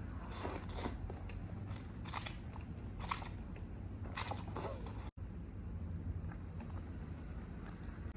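Close-miked eating sounds: a person biting and chewing noodles, with four or five sharp crunchy bites in the first five seconds, then a brief gap and quieter chewing.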